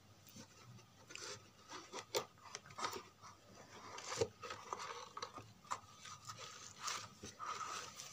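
Faint, irregular rubbing, scraping and small knocks of a home theatre subwoofer's wooden back panel being handled and pulled away from the opened cabinet.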